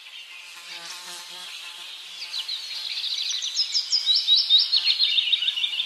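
High-pitched chirping and twittering: many rapid, short notes that grow louder from about two seconds in.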